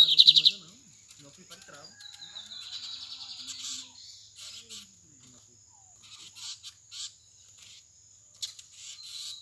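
Lined seedeater (bigodinho) song: a loud, fast trill of repeated notes at the start, another rapid trilled phrase about two to four seconds in, then scattered short chirps. A steady high-pitched insect whine runs underneath.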